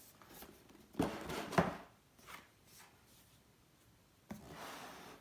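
Cardboard box packaging being handled and slid: a scuffing rub about a second in, a couple of light taps, then a second sliding rub near the end.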